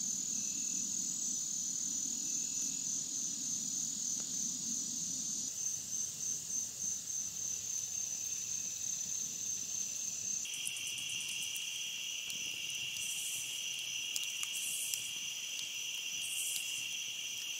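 Night insects chirping in a steady high trill. A second, lower-pitched insect trill joins about ten seconds in.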